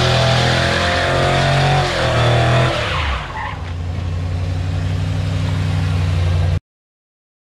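Square-body Chevrolet C10 pickup doing a burnout: the engine is held at high revs while the rear tires spin and squeal. About three seconds in the revs drop and the tire noise stops, leaving the engine running at low revs as the truck rolls. The sound cuts off suddenly near the end.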